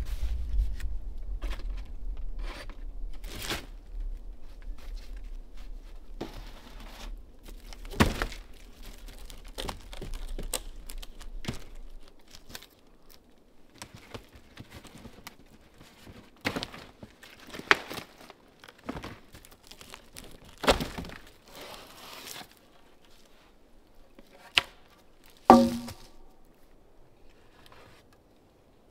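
Stiff roofing-felt sheets rustling and crinkling as they are handled on a log roof, with scattered knocks of wood, the loudest a ringing knock near the end. A low rumble sits under the first dozen seconds and then stops.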